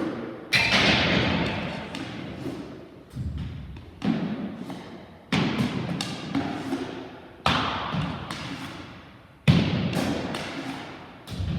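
A series of about six hard thuds, one every one to two seconds, each followed by a long echoing fade: repeated trick-shot attempts with a stick, the shots and the ball's strikes.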